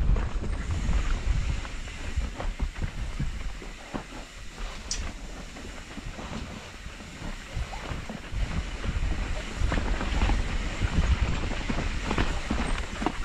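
Mountain bike riding down a dirt trail: wind rushing over the microphone, with tyre rumble and frequent knocks and rattles from the bike over bumps. A brief high squeak sounds about five seconds in.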